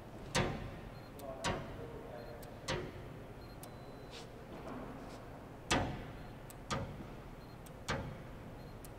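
Probe of a DeFelsko PosiTector 6000 dry film thickness gauge set down on the painted steel of a container door, about six sharp clicks spaced irregularly a second or so apart, each one a coating thickness reading. Faint short high beeps come between them.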